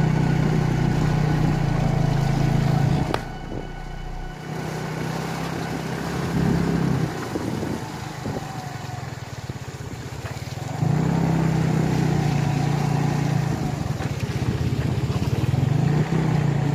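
Small motorcycle engine running while riding a rough dirt track, a steady low drone. About three seconds in the engine note drops away and stays quieter for several seconds, then comes back strongly near eleven seconds.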